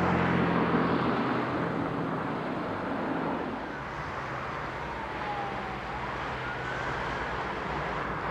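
A rail vehicle's diesel engine runs with a steady low hum over a broad rumble, loudest at first and easing a little about halfway. Near the end a faint tone dips and then rises.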